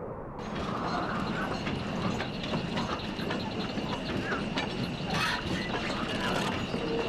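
Dense mechanical clicking and rattling with a steady high whine, starting suddenly about half a second in.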